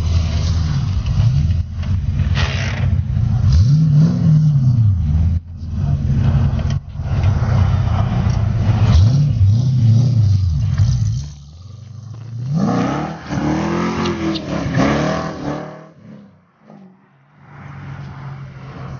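Muscle-car engine revved hard again and again, its pitch climbing and falling back about four times, then dying down near the end.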